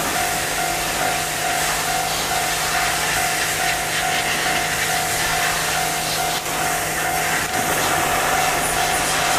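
Japanese railway level-crossing warning bell ringing steadily, over the running noise of a Keikyu local train pulling out of the station and approaching the crossing.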